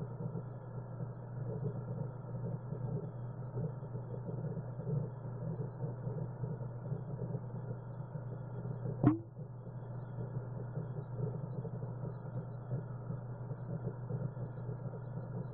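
Aquarium aeration heard from inside the tank: a steady low hum with uneven bubbling over it, from the air stone's stream of bubbles. One sharp knock about nine seconds in.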